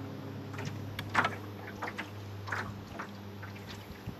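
Small waves lapping and slapping against a boat's hull, several short splashes with the loudest about a second in, over a steady low hum.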